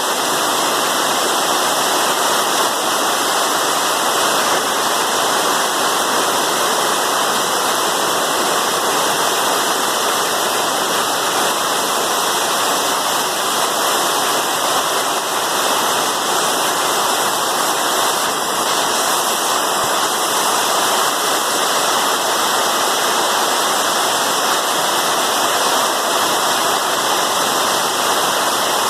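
Heavy rain pouring down in a dense, steady downpour.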